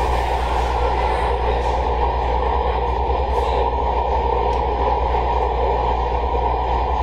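MARTA Red Line rapid-transit train running at steady speed through a tunnel, heard from inside the car: an even rush of wheel and rail noise over a low, steady hum.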